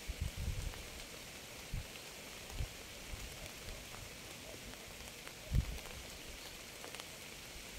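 Steady rain falling, a soft even hiss, with a few short low thuds from heavier drops hitting a surface.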